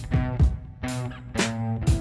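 Background music: guitar and bass over a steady drum beat, about two beats a second.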